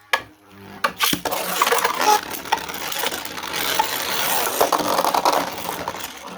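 Two 3D-printed Beyblades are launched with ratcheting launchers about a second in. They then spin and clash in a plastic stadium, giving a continuous scraping, rattling noise with repeated sharp hits.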